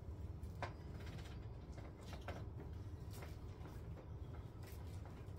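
Quiet room tone with a low steady hum and a few faint soft clicks and creaks scattered through the pause.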